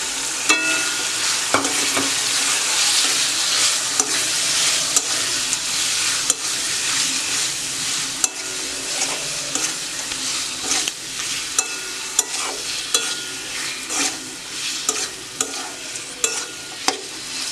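Food sizzling in hot oil in a pan while being stirred, a metal spatula scraping and clinking against the pan many times. The sizzle is thickest in the first half and thins later, leaving the scrapes and clinks more distinct.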